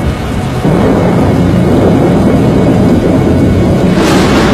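Tornado wind: a loud, dense low rushing noise, stepping up in level a little under a second in, with a brief high hiss near the end.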